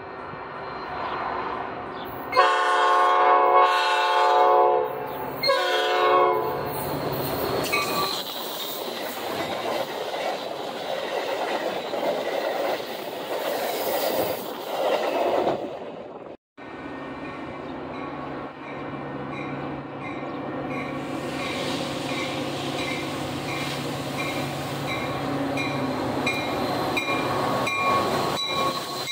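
Metra commuter train arriving: the horn sounds one long blast and then a short one, followed by the steady rumble and wheel clatter of the bilevel coaches rolling past. The diesel locomotive pushing at the rear comes by near the end, adding a low engine hum.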